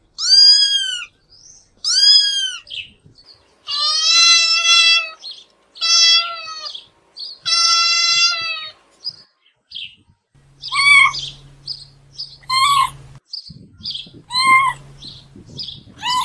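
Domestic cats meowing: two drawn-out meows that rise and fall, then three longer, steadier mews, then short, high meows every second or two in the last six seconds.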